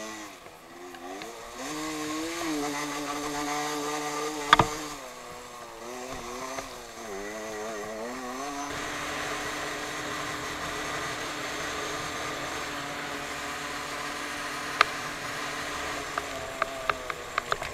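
Small motorcycle or moped engine running under way, its pitch rising and falling with the throttle for about the first nine seconds, then holding steady. A sharp knock about four and a half seconds in, and a quick run of clicks near the end.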